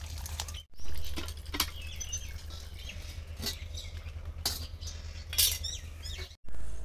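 Steel bowls and utensils clanking and clinking as fresh fish are handled in a steel bowl, a handful of sharp metal knocks, the loudest about a second in and again near the end.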